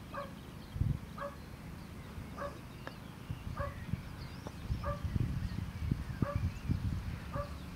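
A distant dog barking steadily, one short bark about every second and a bit, with irregular low rumbling on the microphone in the second half.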